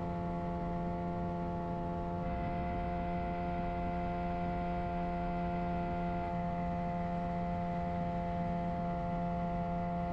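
Boat outboard motor running steadily at a constant cruising speed, a smooth even drone with no change in pitch.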